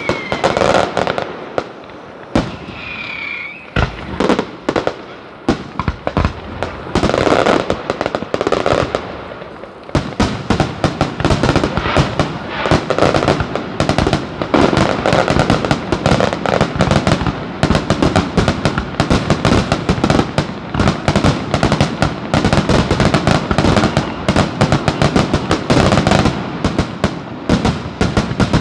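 Closing fireworks display: shells bursting with loud bangs and crackle, with a couple of short whistles in the first few seconds. From about ten seconds in the bursts come thick and fast in a dense barrage.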